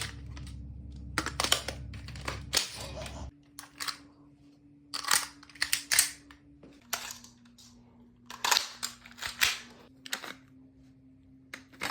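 Toy blaster being handled and reloaded: bursts of quick plastic clicks and clacks in clusters, with a low hum that stops about three seconds in.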